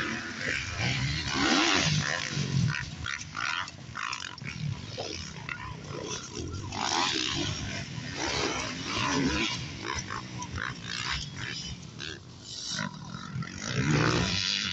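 Motocross bikes racing past on a dirt track, engines revving up and down between gear changes; the sound swells and fades as bikes come and go.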